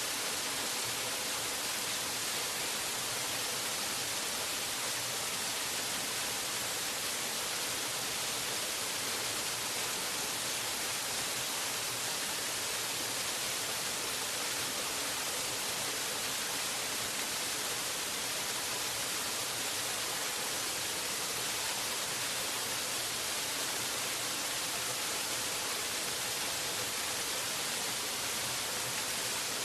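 Waterfall: a steady, unbroken rush of falling water, mostly hiss.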